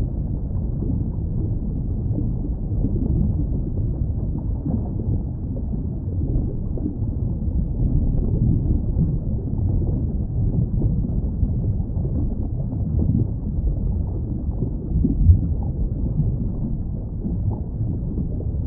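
Steady, muffled low rumble of water noise from an underwater camera's microphone, with a short thump about fifteen seconds in.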